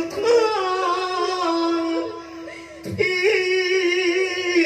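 Likay singing amplified through a microphone over stage music: a sung phrase of long held, wavering notes, with a brief break about three seconds in.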